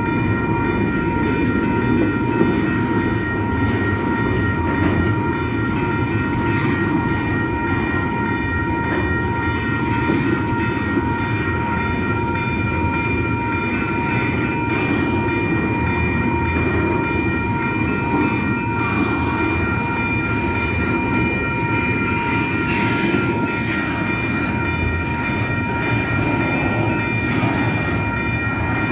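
Double-stack intermodal container train rolling steadily past: a continuous rumble of well cars on the rails, with a steady high ringing tone held over it.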